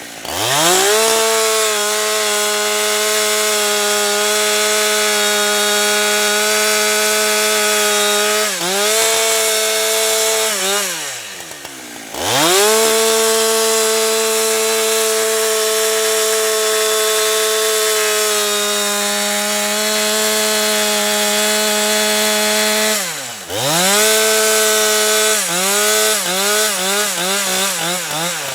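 Husqvarna 365 two-stroke chainsaw at full throttle cutting through wood: two long cuts at a steady high pitch, the engine dropping to idle between them, then a string of short throttle blips near the end.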